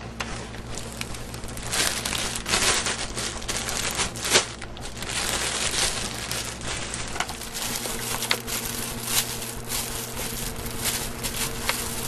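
Red cellophane wrapping crinkling and rustling in irregular bursts as it is folded and pressed around a cardboard box.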